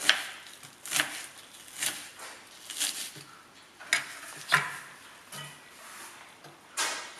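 Chef's knife chopping red onion on a wooden cutting board: single sharp chops, roughly one a second.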